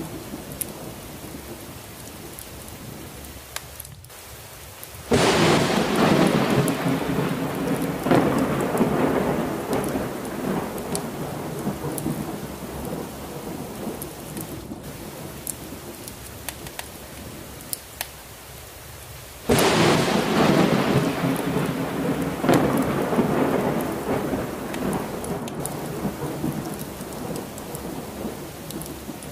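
Steady heavy rain with two thunderclaps, about five seconds in and again near twenty seconds. Each starts suddenly as the loudest sound and rumbles away over several seconds.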